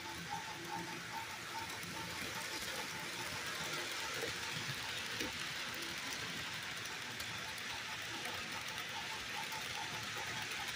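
HO scale model freight train rolling past on the track: a steady whirring rattle of wheels on rail that grows louder a couple of seconds in as the cars come by.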